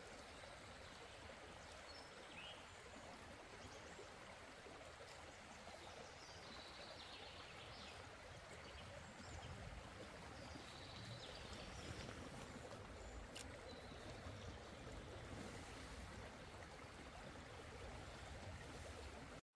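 Mountain river flowing steadily over a rocky bed, an even wash of water that cuts off abruptly near the end.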